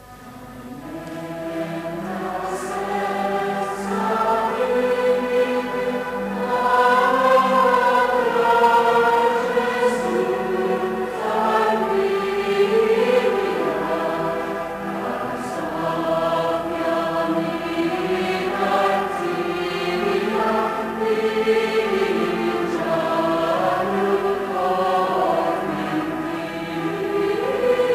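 Mixed choir of men and women singing a Maltese traditional Christmas piece in sustained chords. It swells up from quiet over the first several seconds.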